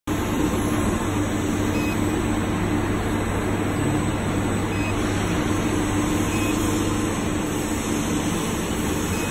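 Steady hum of factory machinery running, a constant low drone over even noise, with a few faint short beeps.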